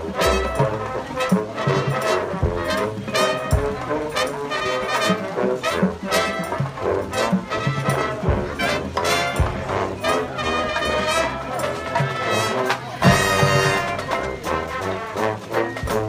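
Drum and bugle corps playing its field show: massed brass horns sounding chords over marching drums and front-ensemble mallet percussion, with low drum hits scattered through and the whole ensemble swelling to its loudest about thirteen seconds in.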